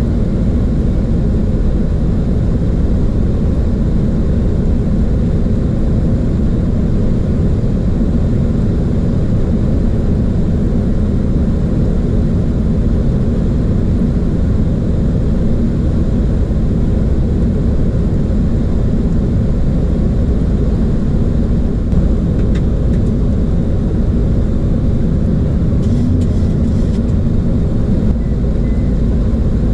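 Cockpit noise of a Boeing 737: a steady low rumble of airflow and engines, with a few faint clicks in the last third.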